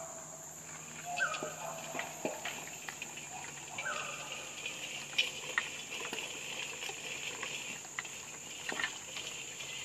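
Crickets chirring steadily in a high, even band, with scattered light clicks and clanks from a horse's harness and a disc harrow being pulled through loose soil.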